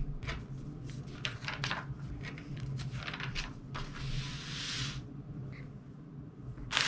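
Small plastic Lego pieces clicking and tapping as they are handled, with a brief rustle about four seconds in.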